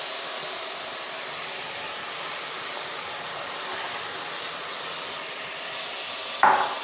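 Onion, tomato and mint masala frying in oil in an aluminium pressure cooker, a steady sizzle as soaked rice is added. A brief louder knock or clatter comes near the end.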